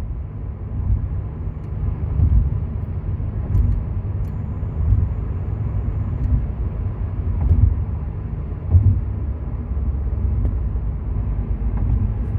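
Mazda 3 running, a steady low rumble with a few faint, scattered clicks, which the owner traces to under the steering wheel.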